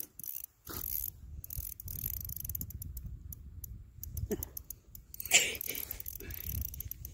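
Small ice-fishing reel clicking rapidly as a big fish is fought on light line, with the line being reeled and pulled against the drag. About five seconds in there is one brief, louder scrape.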